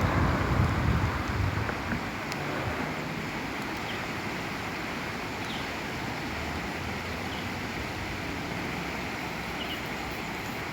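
Steady rush of river water flowing, with wind buffeting the microphone in the first couple of seconds and a few faint short high chirps.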